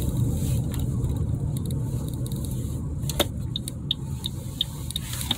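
Steady low road and engine noise inside a moving car's cabin. About three seconds in there is a single sharp click, followed by a run of faint, regular ticks at about two or three a second.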